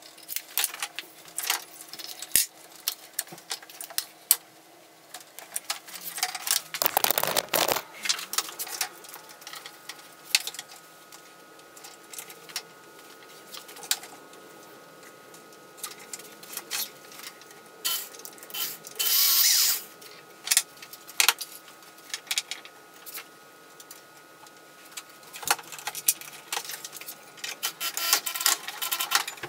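Workshop assembly sounds: clicks, knocks and rattles of bar clamps, tools and pine boards being handled while a wooden bench frame is put together, with two short, louder noisy bursts, one about a quarter of the way in and one about two-thirds through.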